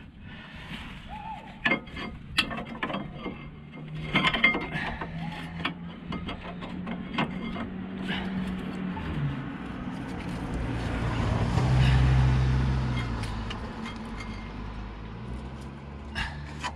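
Hand tools clicking and tapping on metal as a brake-hose retaining clip is prised off its bracket. Over the second half, a vehicle engine rises to its loudest a little past the middle and fades again as it passes.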